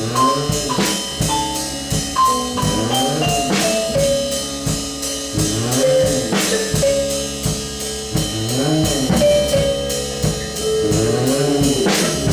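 Improvised instrumental rock: a drum kit keeps a steady beat while an instrument swoops up and back down in pitch about every three seconds, with short held higher notes between the swoops.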